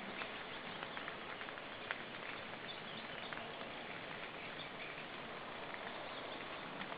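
Steady outdoor hiss from the nest-cam microphone, dotted with faint scattered ticks and a few faint high chirps about three seconds in. No call from the eagle.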